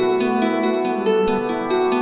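Background music: a soft track of quick, repeating plucked-string notes, like a harp.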